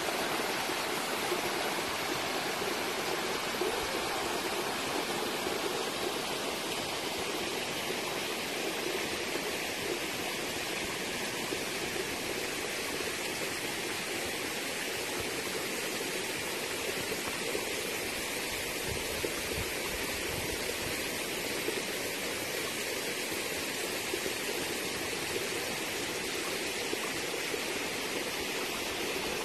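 Small waterfall spilling in thin streams down mossy rock into a stream below, a steady rush of running water.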